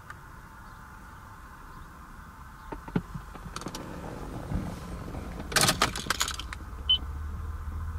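Toyota Crown S150's engine idling, a low steady hum heard from inside the cabin. Light clicks come about three seconds in, then a quick run of clicking and rattling about five and a half seconds in, and a short high tone near seven seconds.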